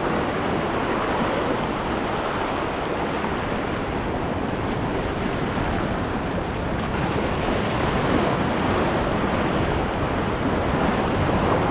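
Ocean surf breaking and washing over shoreline rocks: a steady rush of sea noise.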